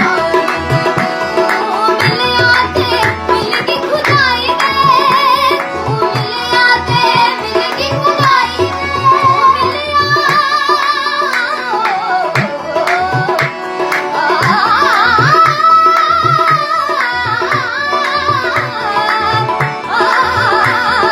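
Indian song performed live: a woman sings ornamented, gliding melodic phrases over a steady tabla rhythm.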